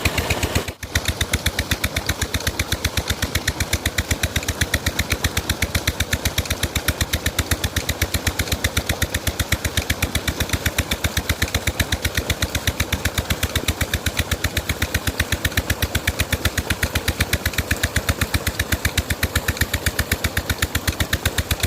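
22 HP Petter diesel engine running after its restoration, its exhaust giving a steady, rapid, even train of sharp beats.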